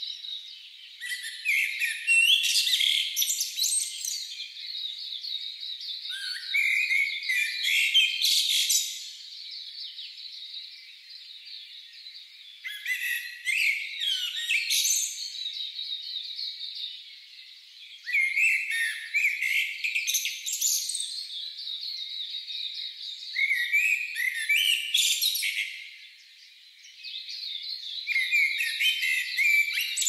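Common chaffinch singing: a short song phrase of descending trills, repeated about every five to six seconds, about six times, over a faint steady background of other birdsong.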